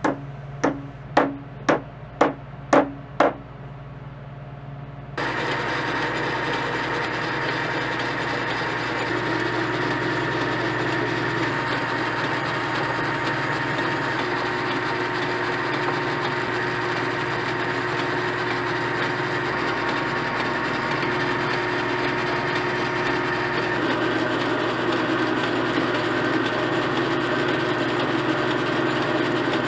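About six sharp, ringing blows of a mallet, roughly two a second, tapping a workpiece to seat it in a metal lathe's chuck. About five seconds in, the lathe starts up and then runs steadily while the spinning part is sanded and has a groove turned in it.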